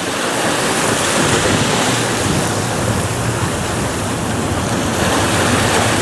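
Small waves breaking and washing up a sandy shore in a steady hiss of surf, with wind rumbling on the microphone.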